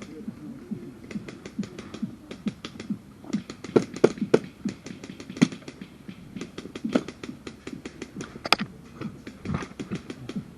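Airsoft guns firing: a long irregular string of sharp clicking shots, some in quick runs, with the loudest cracks around four seconds in and again near eight and a half seconds.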